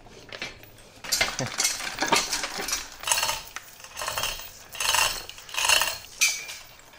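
Irregular metal clanking, scraping and rattling as an N55 engine block hanging from a hoist chain is worked back onto an engine stand's mounting head, starting about a second in. Near the end one clink rings briefly.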